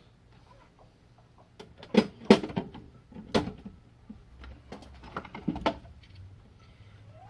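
Several sharp clicks and knocks of tools and parts being handled on a workbench, loudest about two seconds in and trailing off by near the end, over a faint low hum.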